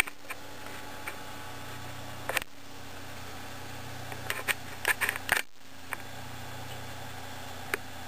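A steady low electrical hum, with scattered light clicks and taps and a small cluster of them around the middle.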